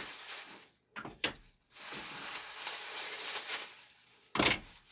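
Clamps and packaging being handled on a work surface: a click, then about two seconds of rustling, and a loud knock near the end as something is set down.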